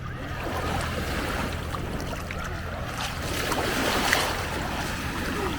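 Small lake waves lapping and washing at the shore, swelling about halfway through, over a steady low hum and some wind on the microphone.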